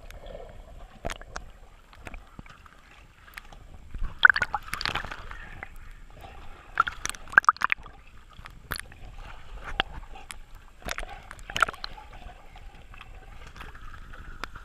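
Pool water sloshing and splashing against a camera in a waterproof housing as dogs paddle and wade beside it, with irregular sharp knocks and splashes. The loudest splashes come about four to five seconds in and again around seven and a half seconds.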